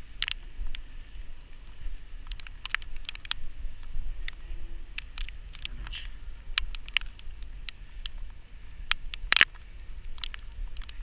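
Wind buffeting the microphone as a steady low rumble, with irregular sharp crackles and clicks scattered through it, the loudest about nine seconds in.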